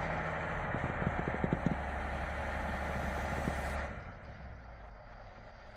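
A vehicle or machine engine running steadily at idle, with a few short knocks about a second in; the sound drops away about four seconds in.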